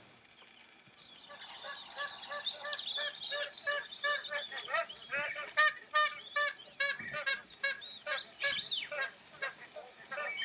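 Magpie geese honking: starting about a second in, a long run of rapid repeated calls from several birds at different pitches, overlapping.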